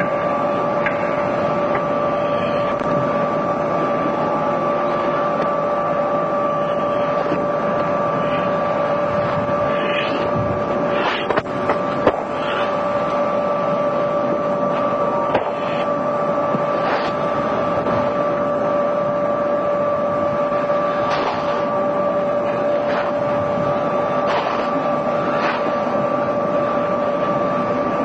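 Steady hum with a constant hiss, broken by a handful of short sharp knocks in the second half.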